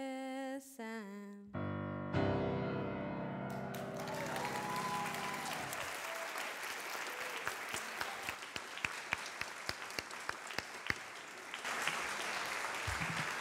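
A woman singing the last word of a song over grand piano, the piano closing on a final ringing chord, then the audience applauding, with scattered sharp single claps standing out.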